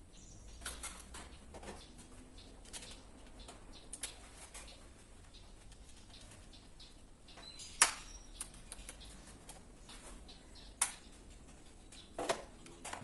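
Scattered plastic clicks and snaps of miniature circuit breakers being handled inside a distribution board, with a few sharper, louder snaps in the second half.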